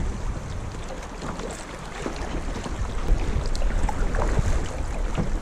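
Kayak being paddled on a river: paddle blades dipping and splashing and water lapping against the hull, with wind rumbling on the microphone.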